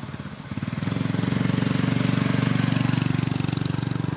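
A motor vehicle's engine running close by. It comes in about half a second in and then holds steady with a fast, even throb.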